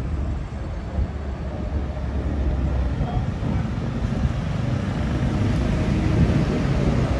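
Road traffic: the low engine rumble of passing vehicles, getting a little louder in the second half.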